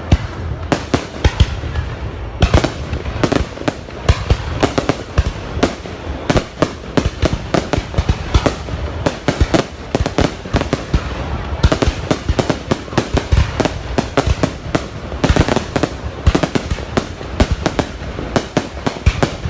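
Fireworks display: a continuous barrage of sharp bangs and crackles, several explosions a second with no letup.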